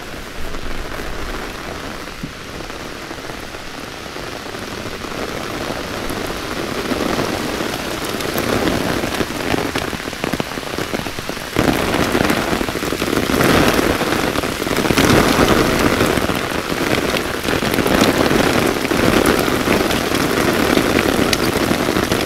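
Rain shower falling on an umbrella held overhead and on the river's surface: a dense, steady hiss that grows heavier, with a sudden rise in loudness about halfway through.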